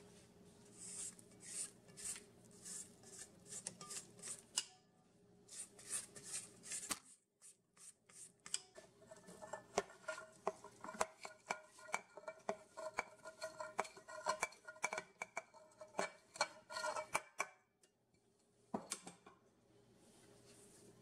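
A spatula scraping down the sides of a stainless steel stand-mixer bowl in a run of short strokes. After a brief pause, a utensil scrapes the cornmeal and buttermilk mix out of a second bowl, rapid clicks over a ringing note.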